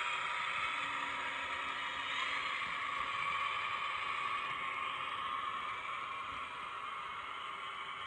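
Digitrax SDH186MT sound decoder in a KATO HO-scale DE10 model locomotive, playing recorded DE10 diesel engine sound through its small 28 mm speaker as the model runs along the track. The sound is thin and hissy with almost no bass, and grows a little quieter toward the end.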